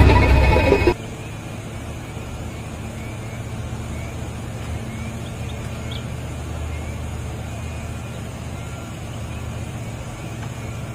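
Heavy diesel engine running steadily at a constant pitch, after music that cuts off about a second in.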